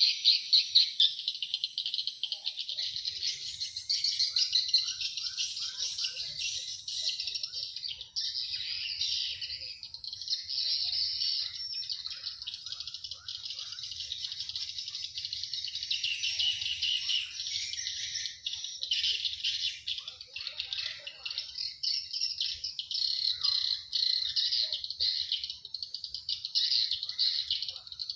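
Swiftlet calls: a dense, continuous high-pitched twittering of rapid chirps, the sound a swiftlet house is filled with to draw nesting birds. A faint low hum runs underneath from about three seconds in.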